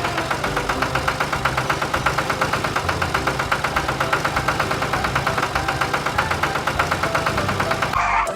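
Cartoon vehicle engine sound effect: a steady, rapid chugging of about eight pulses a second, over background music, breaking off briefly near the end.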